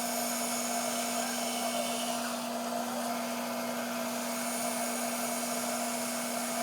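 Band saw running with a steady hum, its blade making a straight cut through a wooden board.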